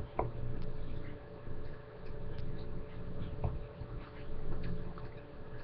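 Low room rumble and a steady hum, with a couple of soft clicks, one shortly after the start and one past the middle.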